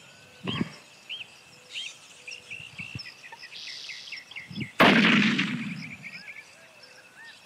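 A single rifle shot from a scoped bolt-action hunting rifle, about five seconds in: a sharp crack followed by a low rolling echo that fades over a second or so. Small birds chirp repeatedly around it.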